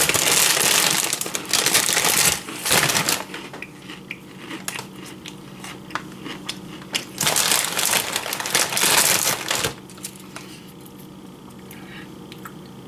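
Cheetos being crushed by hand over a tortilla: loud spells of crunching in the first few seconds and again about seven to ten seconds in, with scattered small crackles between and quieter near the end.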